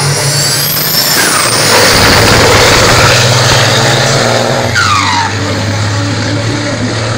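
Two diesel drag-racing trucks launching and accelerating hard down the strip. The engine noise swells a little after a second in, and two falling tones cut across it, one about a second in and another near five seconds.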